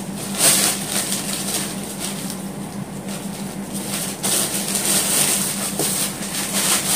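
Thin plastic shopping bag rustling and crinkling in repeated bursts as it is handled and clothes are pulled out of it.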